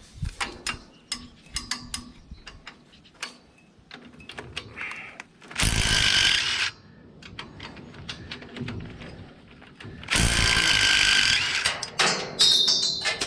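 A handheld power tool spinning out bolts runs in two bursts of about a second each, with sharp metallic clicks and knocks of parts being handled between them.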